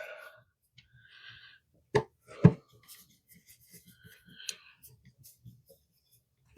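Two sharp clicks about half a second apart, a couple of seconds in, from handling a wall outlet and its metal spacer plates while lining them up, with faint scraping around them.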